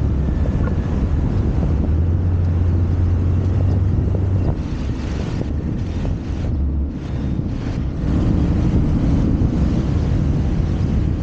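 Wind buffeting the microphone over the low running of a motor scooter riding on a street. The rumble eases for a few seconds midway and then picks up again.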